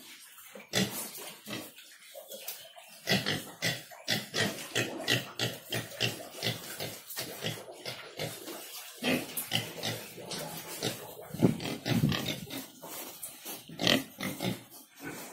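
Yorkshire pigs grunting: many short, irregular grunts in quick succession, with a few louder ones standing out.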